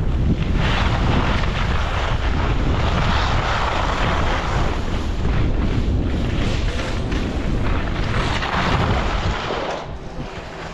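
Wind buffeting an action camera's microphone while skiing downhill, with skis hissing and scraping over packed snow, the hiss swelling twice through turns. The noise falls away about ten seconds in as the skier slows to a stop.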